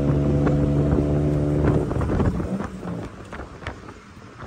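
Tuk-tuk engine running at a steady pitch, with rattling clicks. About halfway through the engine note drops away, leaving quieter road and wind noise.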